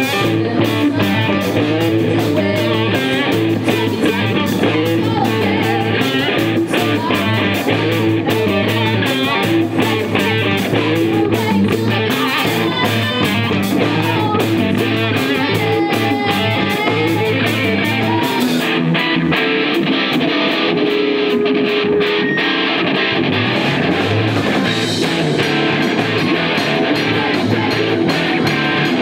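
Live rock band playing: electric guitar, bass guitar and drum kit. The cymbals drop out for several seconds past the middle of the passage and come back near the end.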